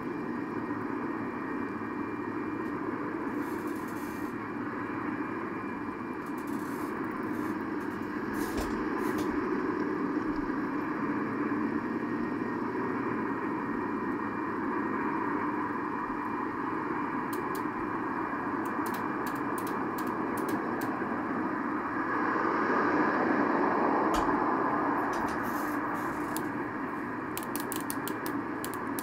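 Steady road traffic noise from vehicles on the street, swelling louder about three quarters of the way through as one passes close, with a few faint clicks.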